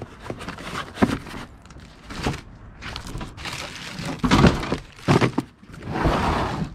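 Objects being handled and rummaged through: several separate knocks and thunks, the loudest a cluster a little after the middle, then a stretch of paper or plastic rustling near the end.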